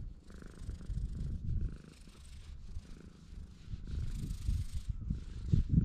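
A tabby-and-white stray cat purring steadily while its chin is scratched, with a soft hiss coming and going over it.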